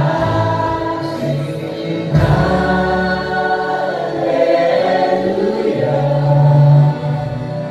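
Live worship band playing a praise song: several voices singing together over keyboard and guitars, with steady bass notes underneath.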